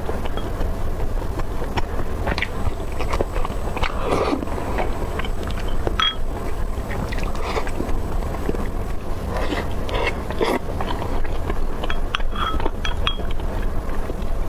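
Close-miked eating: irregular chewing and crunching of fried chicken over a steady low rumble.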